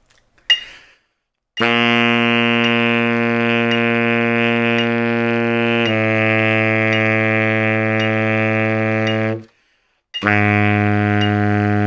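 Baritone saxophone playing long tones. One held note gives way to a note a step lower, which stops about nine seconds in. After a short breath, a new long note starts near the end.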